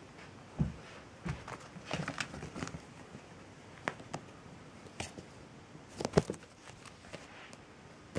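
Irregular soft knocks, bumps and rustles of a kitten moving about on blankets and a carpeted floor, with the loudest double bump about six seconds in.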